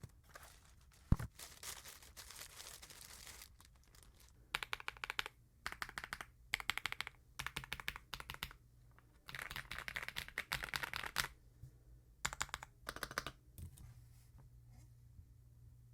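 Typing on an Akko Mineral 02 full-size mechanical keyboard: six bursts of quick keystrokes with short pauses between them. Before the typing there is a sharp click about a second in and a short stretch of rustling noise.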